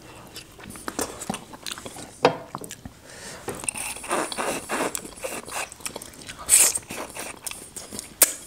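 A person eating goat trotters (paya) in curry by hand: biting and chewing the soft meat off the bone, with a run of short crunching clicks, the loudest about two seconds and about six and a half seconds in.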